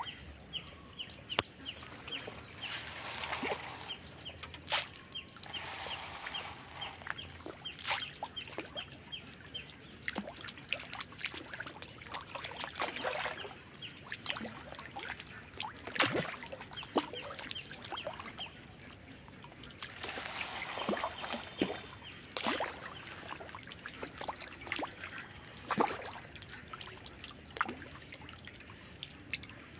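Fish feeding at the surface on floating feed pellets: irregular splashes and sharp slurping pops, a few of them louder.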